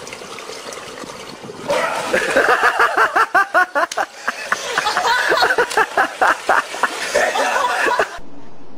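People laughing hard in rapid, rhythmic bursts, starting about two seconds in. Near the end it cuts off abruptly to a steady low hum.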